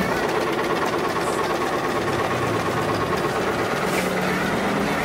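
Riccar 987 portable sewing machine running steadily, stitching a straight seam through fabric.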